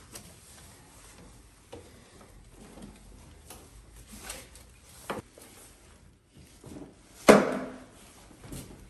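Tie-down straps being undone from their ratchet buckles on a wooden motorcycle shipping crate: scattered small clicks and strap rustling, with one loud clack about seven seconds in.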